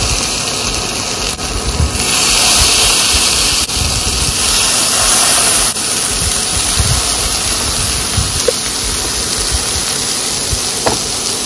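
Marinated chicken satay skewers sizzling in hot oil in a nonstick pan. The sizzle grows louder about two seconds in as more skewers go in, with occasional soft low knocks as they are set down.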